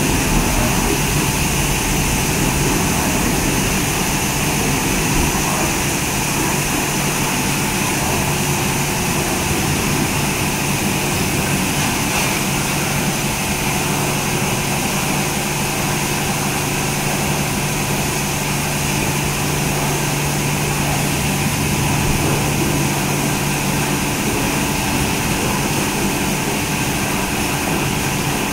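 Automatic rollover car wash running: its rotating brushes and water sprays make a steady hiss over the hum of the electric motors. About 23 seconds in, the low hum gives way to a higher one.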